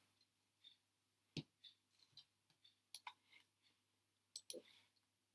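A few computer mouse clicks in a near-silent room: scattered faint ticks, with sharper clicks about a second and a half in, about three seconds in and a close pair near the end.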